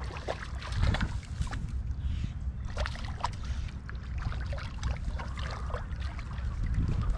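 Hooked sea-run brown trout splashing and thrashing at the surface while being played on a fly rod, a run of short irregular splashes, over a steady low wind rumble on the microphone.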